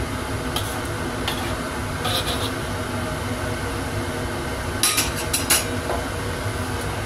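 A metal spatula knocks and scrapes against a wok a few times, with a quick cluster of knocks about five seconds in. Underneath, chicken and tofu in oyster sauce sizzle steadily on low heat.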